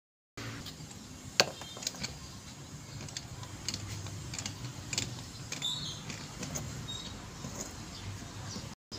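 Scattered metal clicks and light knocks from a screwdriver working on a steering box housing, with one sharp click about a second and a half in.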